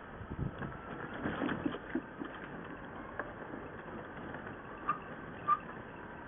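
A scooter rolling along a pavement: a low rumble and rattle from its wheels and body over the paving, with scattered light knocks. Two short high chirps come about five seconds in, the second louder.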